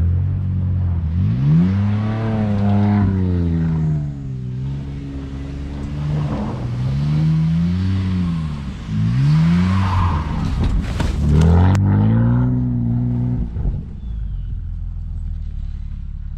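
F80 BMW M3's twin-turbo inline-six revving up and falling back again and again, about five times, as the rear-wheel-drive car drifts on snow, over a hiss of wheelspin. Near the end the revs drop to a steady lower engine note.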